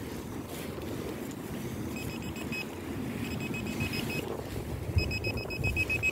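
Handheld metal-detecting pinpointer probe beeping in short, high-pitched pips as it is worked through the loose soil of a dug hole. The pips come in runs, a few about two seconds in and growing faster and closer together near the end as the probe closes on the buried target. Wind rumbles on the microphone underneath.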